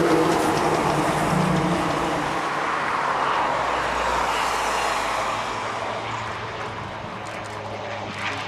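Beechcraft 1900D twin-turboprop passing low on landing, its engines and propellers giving a steady drone with a low hum that slowly fades as it goes by.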